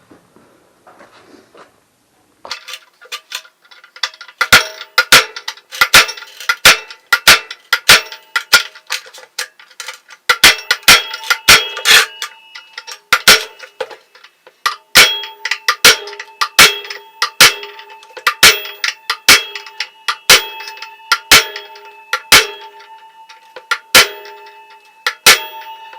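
Repeated hammer blows on metal, starting about two seconds in and going at roughly two blows a second. Each blow rings briefly, with a short pause about halfway through.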